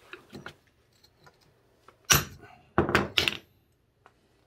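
Hammer knocking on a chisel and concrete chunks clattering as small slabs of a saw-cut concrete footing are broken loose. One loud knock about two seconds in, then a quick cluster of knocks around three seconds.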